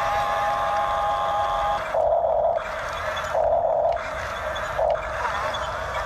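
Huina RC toy bulldozer at work: a steady high tone for about the first two seconds, then three short buzzing bursts.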